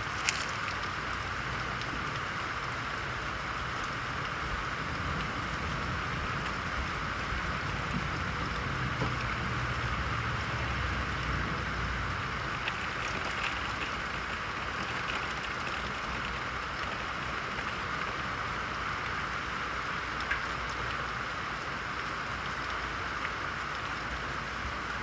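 Steady thunderstorm rain falling, a constant hiss of drops on surfaces with an occasional sharper drip. A low rumble swells and fades in the middle.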